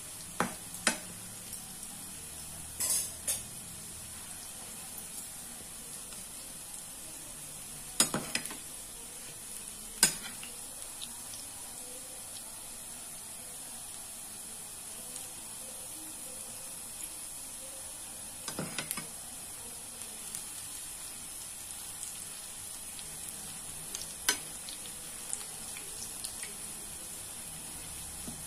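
Onion pakodi deep-frying in hot oil in a pan, a steady sizzle, with a steel ladle knocking against the pan now and then as the fritters are turned.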